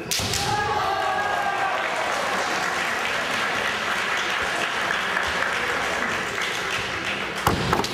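Audience applauding steadily in a large hall, the applause for a point just awarded in a kendo bout, with shouts in the first couple of seconds. A single sharp impact comes near the end.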